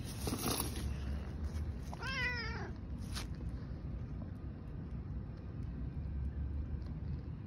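A tabby cat meows once, a single wavering meow about two seconds in, begging to be fed. A few brief rustles come before and after it.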